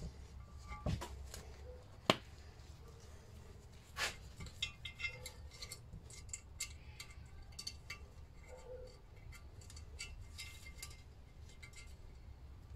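Small metallic clicks, scrapes and knocks as a valve spring in a Lister D cylinder head is pushed down with a hand tool and the flat rectangular retainer is pushed into the slot in the valve stem. A few sharper knocks stand out, about 1, 2 and 4 seconds in.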